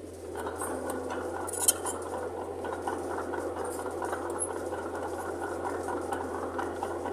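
Mitsubishi bulldozer working: a steady low engine drone under a dense metallic clatter, with one sharp clink about two seconds in.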